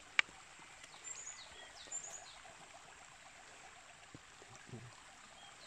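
Steady rush of a creek's running water, with short falling bird chirps about a second in, around two seconds and again at the end. A single sharp click sounds just after the start.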